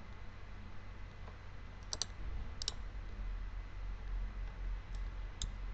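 A few sharp computer mouse clicks over a low steady hum: a quick double click about two seconds in, another just after, then three single clicks near the end.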